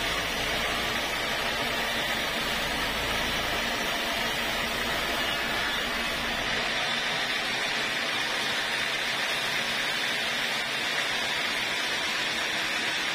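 Band sawmill blade running steadily through an acacia log, a continuous hissing saw noise. A low hum underneath drops away about halfway through.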